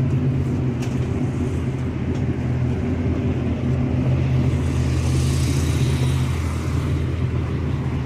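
Engine idling steadily in a low, even rumble, typical of a dirt-track race car warming up in the pits.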